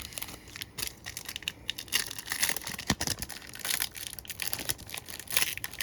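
Trading card pack wrapper crinkling and tearing as it is handled and opened, with irregular sharp crackles.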